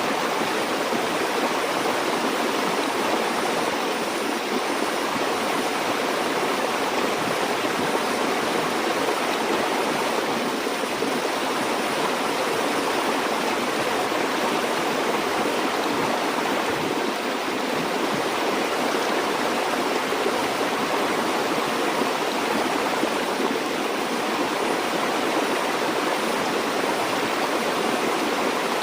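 Stream water flowing steadily over rocks, an even rushing and babbling with no breaks or changes.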